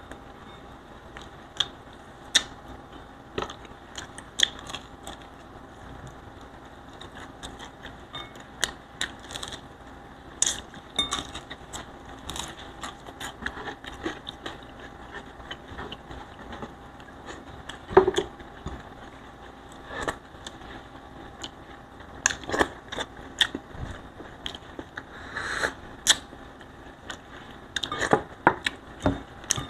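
Close-up eating sounds from rice being eaten by hand: irregular wet clicks of chewing and lip smacking, with fingertips tapping and scraping on a wooden tray to pick up loose rice. The loudest smack comes about eighteen seconds in.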